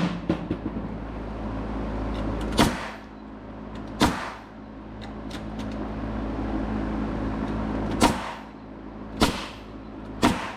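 Six sharp, loud impacts spread over about ten seconds, typical of nails being driven into framing lumber, over a steady machine hum that swells and fades.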